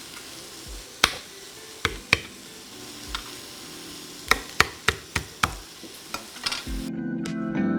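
Kitchen knife chopping on a cutting board, about a dozen separate irregular knocks as garlic is minced, over a steady sizzle of chicken frying in a cast iron wok. Guitar music comes in near the end.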